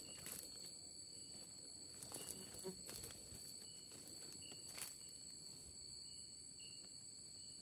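A few soft footsteps and rustles in leaf litter and undergrowth, scattered through the first five seconds. Under them runs a steady high-pitched drone of night insects, with short chirps repeating about once a second.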